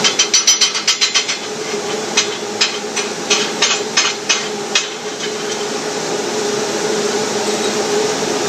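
Chipping hammer striking a 6010 weld bead to knock off the slag: a quick flurry of sharp metallic taps, then slower single strikes that stop about five seconds in. A steady hum and hiss runs underneath.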